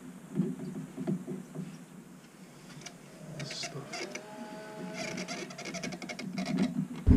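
Woven exhaust heat wrap being stretched and wound tightly round a metal exhaust pipe: faint scratchy rustling of the fabric with scattered small clicks and taps.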